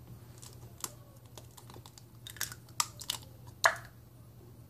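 Scattered light clicks and taps of an eggshell being handled and cracked over a glass bowl, the sharpest crack about three and a half seconds in.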